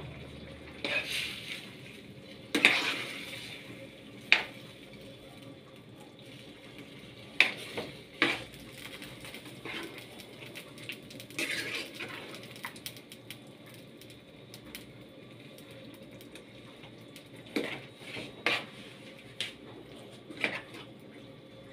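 A metal spoon stirring a thick stew in a stainless steel frying pan: scattered clinks, knocks and scrapes of the spoon against the pan, irregularly spaced, over a faint steady hiss.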